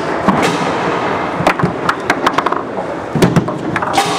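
Foosball play on a competition table: sharp clacks of the hard ball against the plastic players, rods and table walls, some single and some in quick runs, over a steady background din.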